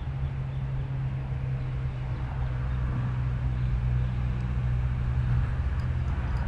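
A motor running steadily, a continuous low hum with rumble beneath it.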